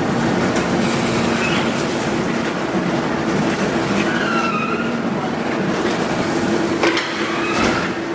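Food-processing machinery in a kimchi factory running steadily, with a constant hum and clatter. Brief metallic squeals come about four and a half and seven and a half seconds in.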